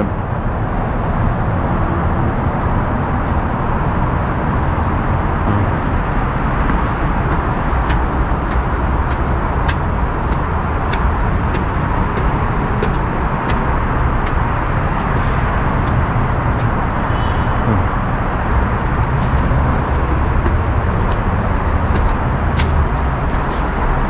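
Steady roar of freeway traffic from Interstate 5 below the park. Short sharp ticks, likely footsteps on concrete, come about once a second through the middle and again near the end.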